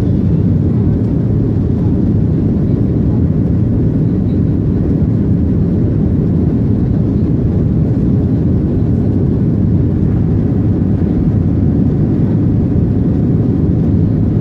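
Steady low roar of an airliner's engines and airflow during the climb after takeoff, heard inside the cabin.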